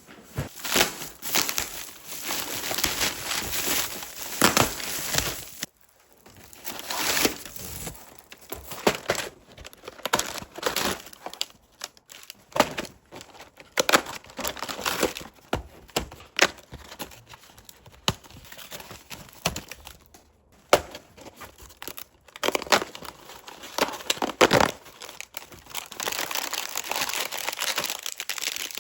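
Packaging being crinkled and crumpled as it is handled, in irregular bursts with short pauses between them.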